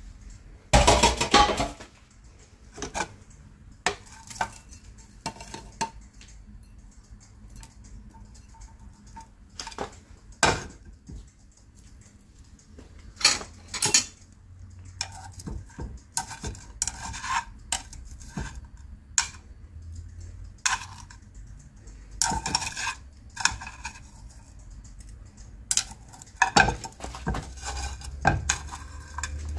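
Kitchenware clatter: utensils clinking and knocking against a ceramic bowl and a frying pan in scattered, irregular strikes, with the loudest clatter about a second in. A low steady hum runs underneath.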